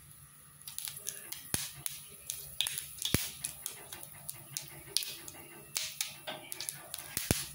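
Mustard seeds spluttering in hot oil in a pan: irregular sharp pops over a light sizzle, starting about a second in.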